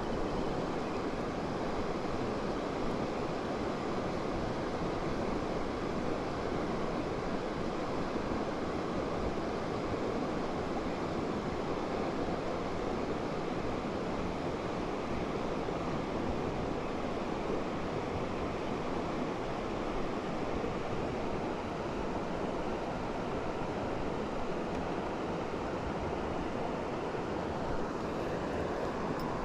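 River water rushing steadily, an even hiss of flowing current.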